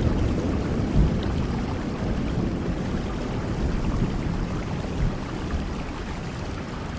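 Steady rain with a low rumble of thunder that slowly fades away, swelling briefly about a second in.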